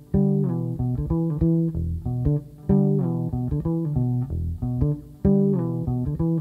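Background music: short plucked string notes over a bass line.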